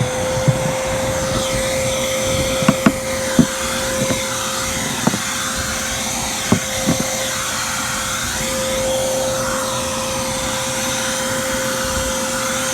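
Vacuum motor running at a steady high whine while sucking up bees and debris from a hive in a ceiling. Several sharp clicks and knocks sound over it in the first half.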